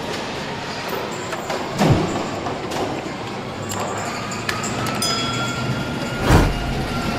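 Car assembly line noise: a steady machinery hum with scattered clicks and clanks, and a faint whine that slowly rises in the second half. Two heavy thumps stand out, one about two seconds in and a louder one about six seconds in.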